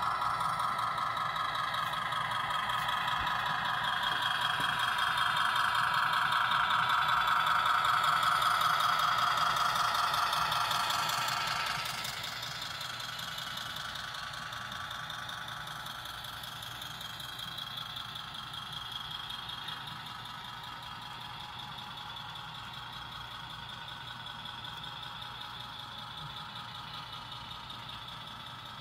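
Model train running past: the Kansas City Southern ES44 diesel locomotive model is loudest as it passes close. About twelve seconds in, the sound drops and covered hopper cars roll by more quietly.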